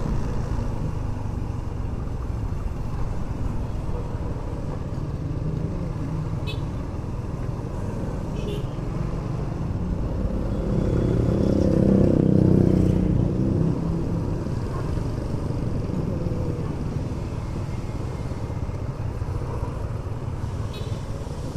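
Motorcycle ride heard from the rider's microphone: steady engine and road noise, swelling louder for a few seconds about halfway through.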